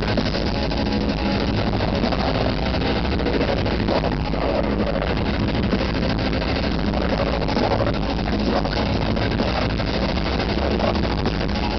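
Blackened death metal band playing live through a festival PA, heard from the crowd: distorted electric guitars over drums in a dense, unbroken wall of sound.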